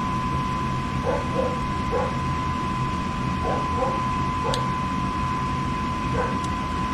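Gas furnace running through an ignition attempt: a steady low hum with a thin, constant high whine and a couple of faint clicks. The burners fail to light, with the system heading toward lockout.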